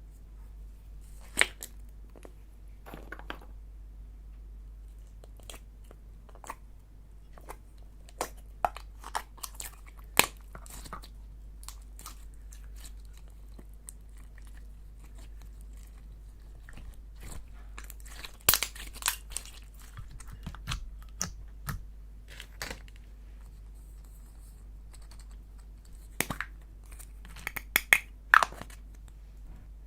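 Slime being handled and mixed, with irregular sticky pops and crackles, some much louder than others.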